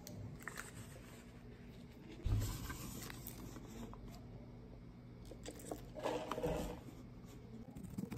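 Quiet handling sounds at a desk: paper rustling and a small perfume bottle being handled. About two seconds in there is a soft thump with a short hiss, a perfume atomiser being sprayed, and a louder rustle comes near the end.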